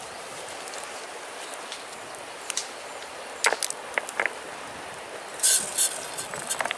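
Cobblestones knocking and clacking against each other as they are handled around a campfire: a few sharp knocks in the middle and a short scraping rustle near the end, over a steady background hiss.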